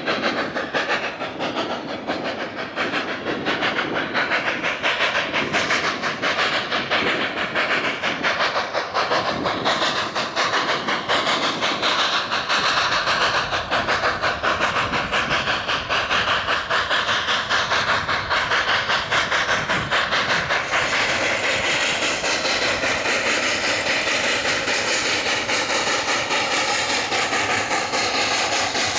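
Narrow-gauge steam train under way: steam hiss and locomotive exhaust over the clatter of the cars on the rails, with a fast pulsing in the loudness. The sound turns brighter and hissier about two-thirds of the way in.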